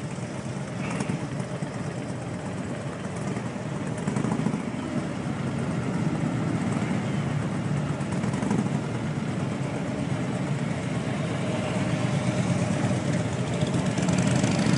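Engines of a group of touring motorcycles and trikes running at low speed as they pull out one after another, the rumble growing steadily louder as the bikes come closer.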